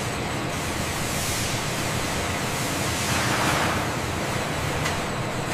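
Steady rushing hiss of a stream pouring from an overhead hopper into a stainless mixing bowl, swelling about three seconds in, over a low machine hum.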